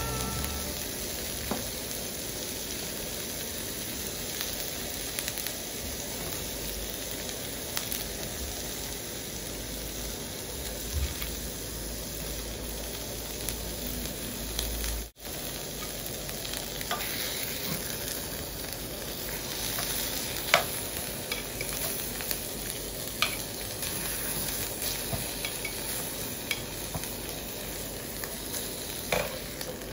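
Beef steak and vegetables sizzling steadily in a hot grill pan on a portable butane stove, with a few sharp clicks of metal tongs against the pan as vegetables are added.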